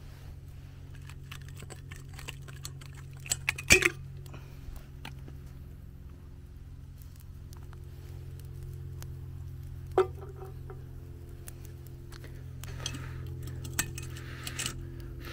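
Metal clinks from a stainless steel kettle boiling chestnuts as its lid and handle are handled: a cluster of sharp clinks a few seconds in, another about ten seconds in, and a few more near the end. Under them run faint scattered crackles from the wood fire beneath it and a steady low hum.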